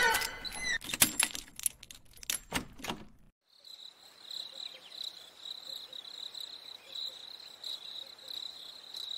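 Metal chain clinking and rattling in a quick series of sharp clinks, cutting off abruptly about three seconds in. Then a steady night-time cricket chorus, one high continuous trill.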